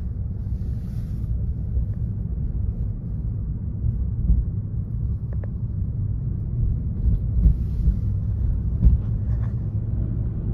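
Steady low rumble of a car driving on the road, with a few soft knocks in the second half.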